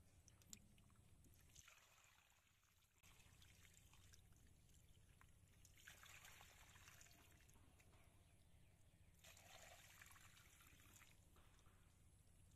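Near silence: faint trickling of muddy water through a shallow channel cut in a mud bank, swelling briefly three times.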